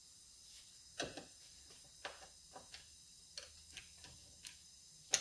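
Faint, irregular small clicks and taps of metal chain-brake parts and a hand tool against the plastic clutch cover of a Husqvarna 455 chainsaw as the brake mechanism is fitted, about one every half second to second, the sharpest one near the end.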